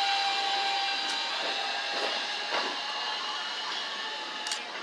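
New York City Subway N train pulling away from the platform. Its steady high whine and wheel noise fade as it recedes, with a few sharp clicks from the wheels on the rails.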